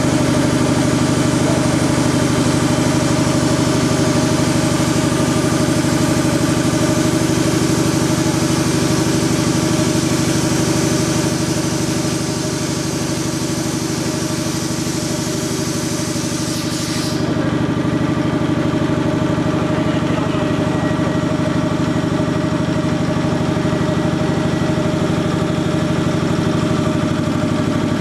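Sperre HV2/200 air compressor running steadily on test, with a hiss of air over the machine noise. About two-thirds of the way through, the hiss cuts off suddenly while the compressor keeps running.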